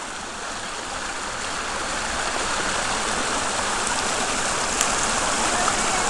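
Water from an underground spring gushing out of the rocks into a small creek, a steady rushing that grows louder over the first few seconds, with a faint tick near the end.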